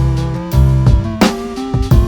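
Background music: an electronic track with a steady drum beat, a bass line and melodic notes.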